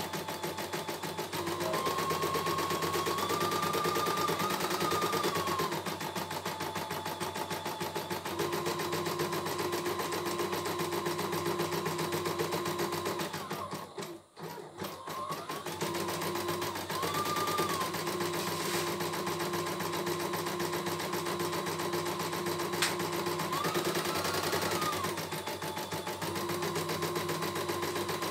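CNY E900 computerized embroidery machine stitching at a fast, even rate, with a motor whine that steps up and down in pitch as it runs. It stops briefly about halfway through, then carries on stitching.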